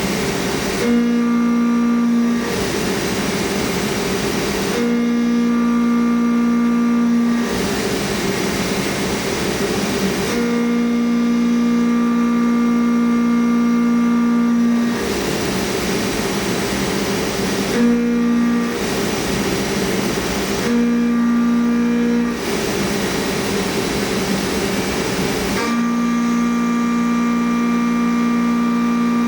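CNC mill's spindle and end mill profile-milling Elmax steel at 3600 RPM, taking 1/8" per pass at 36 IPM. The sound switches every few seconds between a steady pitched hum and a rougher, noisier grinding sound as the cutter moves around the part.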